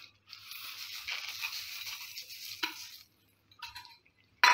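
Granulated sugar tipped from a steel bowl into a pan of hot milk: a steady hiss of pouring for about three seconds, then a few light metal clinks of the spoon and bowl, the loudest just before the end.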